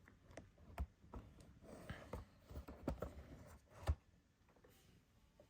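Quiet handling sounds: a scatter of soft knocks and clicks with some light rubbing, the loudest knock just before the end.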